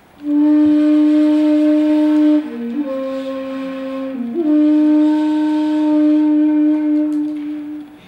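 Shakuhachi, the Japanese end-blown bamboo flute, sounding a long held note, stepping down to a lower note for about two seconds in the middle, then returning to the first note and fading out near the end.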